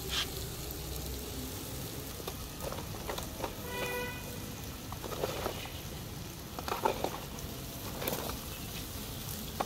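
Whole barramundi sizzling and crackling over a barbecue fire as basting oil and spice paste drip into the flames, a steady hiss with scattered pops. A brief tone sounds about four seconds in.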